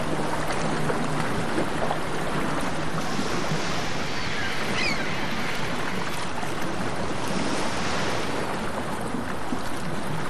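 A steady rushing noise, even and fairly loud, with a short high chirp about five seconds in.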